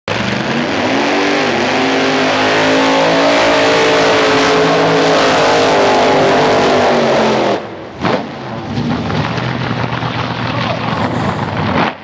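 Drag car's race engine held at high revs during a burnout, its revs rising early and then holding with the rear tyres spinning. About seven and a half seconds in the sound drops away sharply, and engines are heard quieter and more distant as the cars run down the strip.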